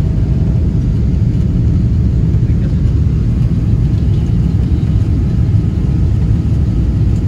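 Steady low rumble of a Boeing 777-200 airliner's engines and airflow, as heard inside the cabin in flight.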